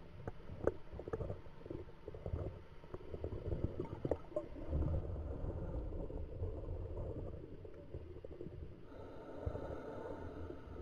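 Scuba diver's regulator exhaust bubbles rumbling and gurgling underwater, muffled, with scattered small clicks and knocks.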